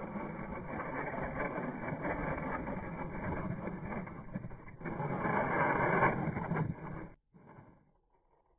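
Small electric motor and gears of a toy RC rock crawler running as it drives over bare rock. The sound is steady, grows louder about five seconds in, and stops abruptly about seven seconds in.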